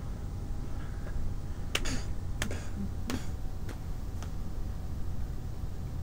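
A handful of short, sharp taps and clicks from hands striking together and against the body, the loudest about two seconds in, over a steady low hum.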